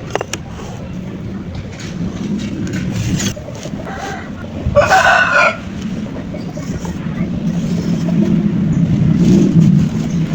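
A rooster crows once, about five seconds in, over a steady low rumble that grows louder toward the end.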